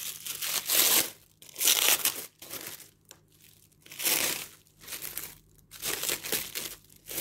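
Clear plastic wrapping crinkling in about six separate bursts as it is pulled and handled off a plate of rice cakes.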